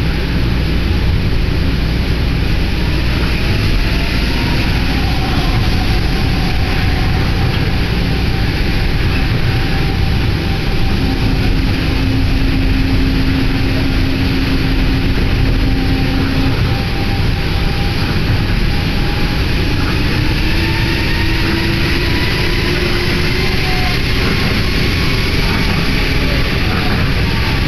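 Yui Rail monorail car running on its rubber tyres, heard from inside: a steady rumble with motor whines gliding up and down in pitch and a brief steady hum midway.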